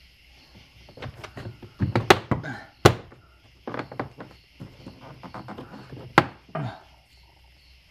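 Plastic interior door panel being pushed onto a car door by hand: a run of knocks and thunks as it is pressed home and its clips snap into place. The loudest knocks come about two, three and six seconds in.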